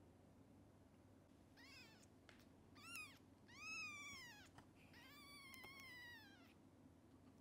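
A very young kitten mewing four times, thin high-pitched calls that rise and fall, the first two short and the last two longer.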